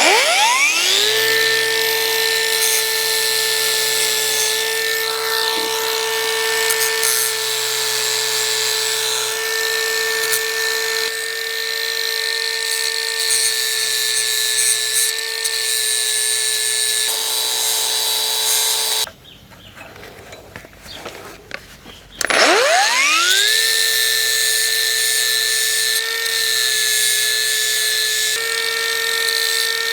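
Small high-speed power tool, most likely a rotary tool, grinding to sharpen the leading edges of a wood chipper's steel flail hammers. It spins up to a steady high whine, is switched off about two-thirds of the way through, and starts again about three seconds later.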